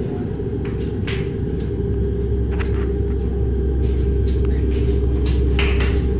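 Steady low rumble with a faint hum running through it, and a few light knocks scattered over it.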